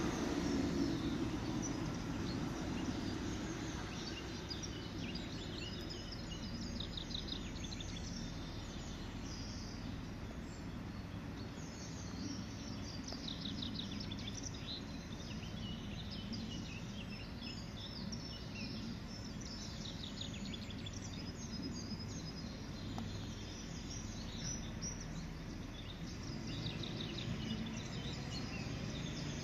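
Small birds chirping and trilling on and off, busiest around the middle, over a steady low outdoor background rumble.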